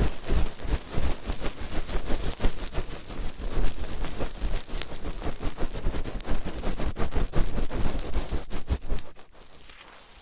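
Close-up ASMR ear pinching: hands squeezing and rubbing the ears of a microphone, a dense crackling rustle with muffled low thumps, stopping about nine seconds in.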